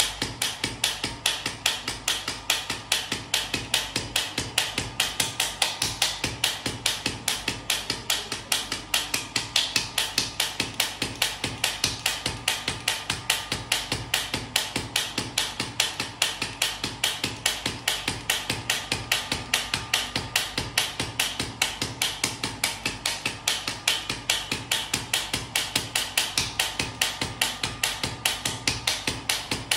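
Radial shockwave therapy handpiece firing against the upper back and neck, a rapid, even train of sharp clicks, about four a second.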